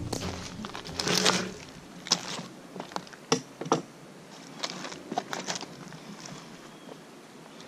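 Footsteps crunching and rustling on dry leaf litter and twigs: a handful of short, irregular steps over the first five or six seconds, then only faint outdoor background.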